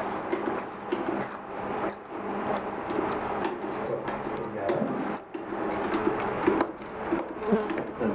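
Newborn calf sucking colostrum from the teat of a plastic feeding bucket, with straw rustling under handling and a few light knocks from the bucket.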